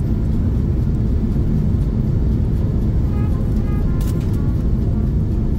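Steady low cabin rumble inside an Airbus A380 taxiing on the ground after landing, with a single short click about four seconds in.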